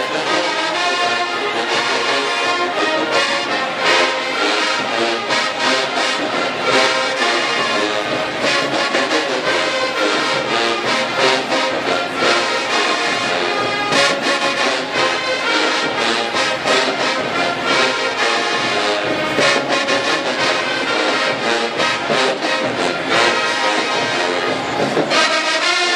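Marching band playing loudly: a full brass section with sousaphones over drums and cymbals.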